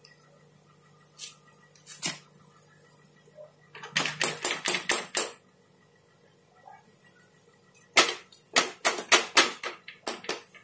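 A hand rapping on the plastic cabinet of a 20-inch LG CRT television: two single knocks, then quick runs of raps, several a second, about four seconds in and again from about eight seconds. It is a knock test for a loose connection or bad solder joint that makes the picture drop out.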